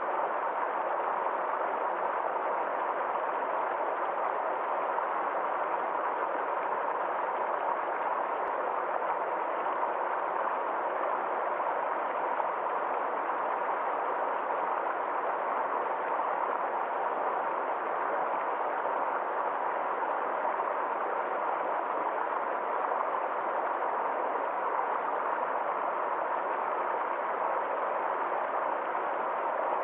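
Stream water flowing steadily in an even, unbroken rush.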